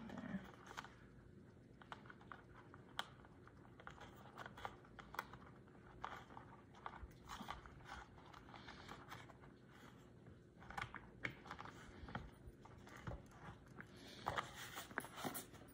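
Faint, scattered clicks, taps and scrapes of hard plastic parts being handled and pressed together: the blue plastic motor cover of a toy paint spinner being fitted back onto its bowl, with a screwdriver in hand.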